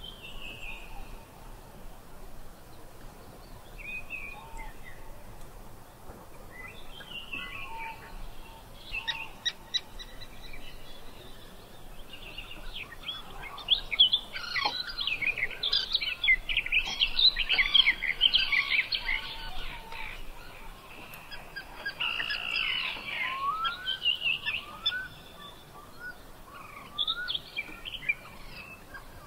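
Several birds chirping and singing over a faint steady outdoor hiss. The chirps are sparse at first, grow into a dense chorus of rapid chirps about halfway through, then thin out again with a few short rising whistles.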